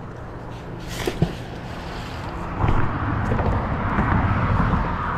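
A road vehicle passing: a steady rushing rumble that swells about two and a half seconds in and holds. There is a single sharp click about a second in.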